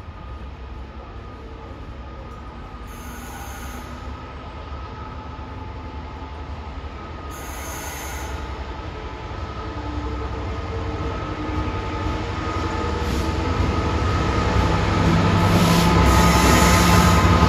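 Class 66 diesel locomotive with its two-stroke V12 engine hauling a container freight train, approaching and growing steadily louder as it draws near. Engine rumble and wheels on the rails build up, with wheel squeal rising toward the end.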